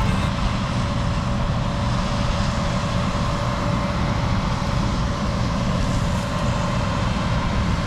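Combine harvester running steadily: a constant low machine rumble with a faint steady whine over it.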